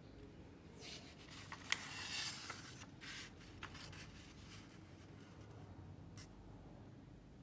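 Thin square origami paper being folded in half by hand and the crease pressed flat: a rustling, crackling of paper with a few sharp crinkles, starting about a second in and lasting two or three seconds, then one light tap near the end.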